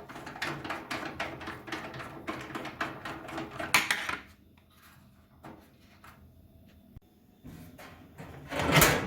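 Microwave oven casing being taken apart by hand: rapid clicking and rattling of its panel and parts for about four seconds, then a few separate knocks, and a louder clatter near the end as a part comes off.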